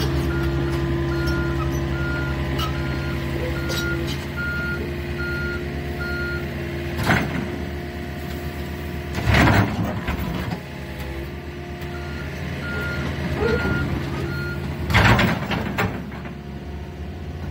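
Komatsu PC40MR mini excavator's diesel engine running steadily while its steel bucket digs and scrapes into packed dirt and stone, with three loud grinding crashes. A warning alarm beeps about twice a second at the start and again about two-thirds of the way through.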